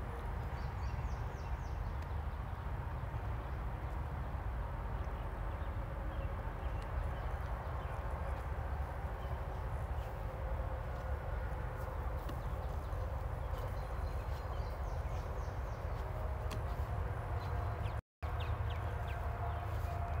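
Steady outdoor background at a field edge: a constant low rumble with faint high chirps about a second in and again past the middle. The sound cuts out for a split second near the end.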